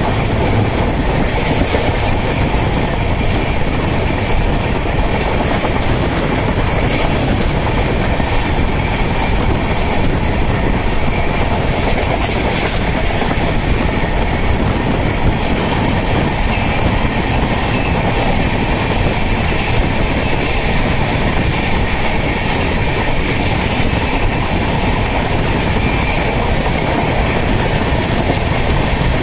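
Steady rolling noise of a moving express passenger train's coach wheels on the rails, heard at speed from the coach doorway.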